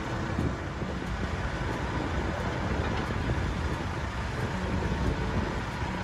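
New Holland combine harvester running steadily while cutting wheat, an even mechanical drone.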